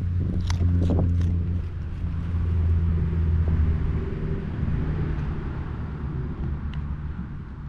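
A steady low motor hum, like an engine running nearby, that eases off after about four seconds. About half a second to a second in, a cocker spaniel bites into a raw carrot with a few sharp crunches.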